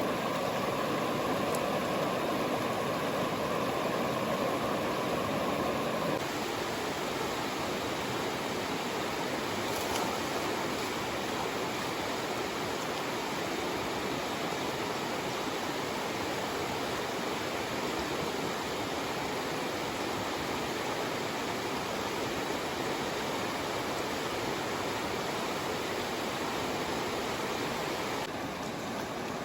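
River water rushing steadily over the riverbed, a continuous hiss of flowing current. It is a little louder and fuller for the first six or so seconds, then drops abruptly to a slightly lower level.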